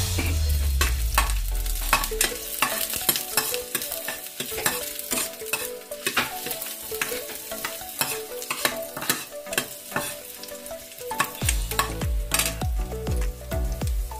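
Minced garlic frying in hot oil, a steady sizzle full of small crackles, with a metal spoon stirring it around the pan. The garlic is at the start of sautéing, not yet browned.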